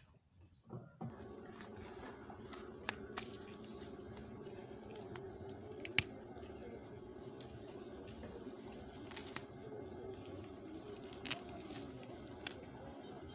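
Weeding with a hoe: weeds being chopped and torn out of the soil, with a few sharp strikes scattered through, over a steady low hum.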